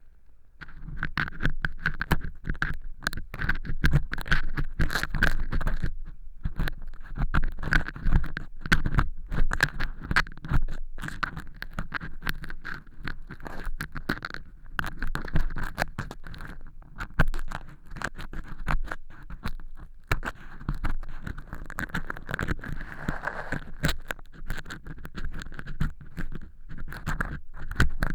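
Earpick scraping and crunching through dry cork-chip fake earwax inside a silicone ear model, picked up close on the microphone: dense, irregular scratching and crackling. It starts about half a second in.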